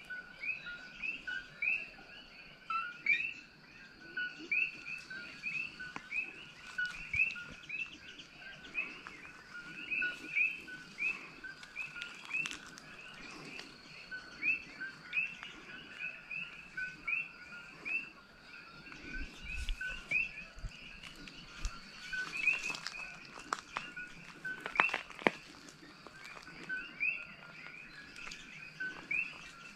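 Many coqui frogs calling in chorus, their short two-note upward chirps repeating a few times a second and overlapping, over a faint steady high tone. A few knocks come about three-quarters of the way through.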